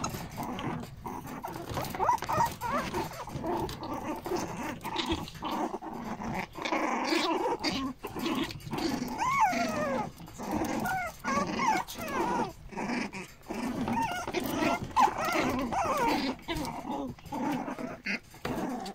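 Prague Ratter puppies play-fighting, with small growls throughout and short high yips and squeals mixed in, most around the middle.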